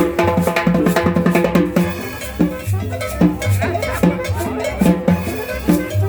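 Upbeat Latin dance music with a drum kit, cowbell and a pulsing bass line.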